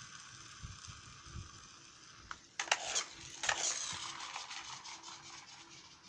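Plastic toy recycling truck being handled, its moving and opening parts giving a few sharp clicks and rattles between about two and a half and four seconds in, over a steady background hiss.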